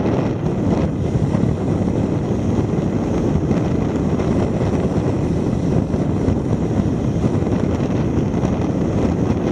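A car driving along a paved road, heard from a camera mounted on its outside: a steady rush of wind on the microphone mixed with road noise.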